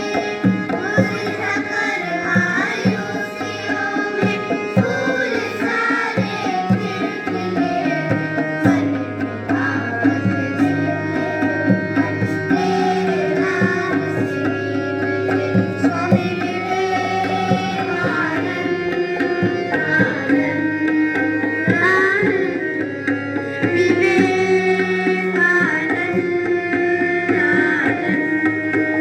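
An inspirational song performed with tabla accompaniment: held melody notes and singing, with steady tabla strokes beneath.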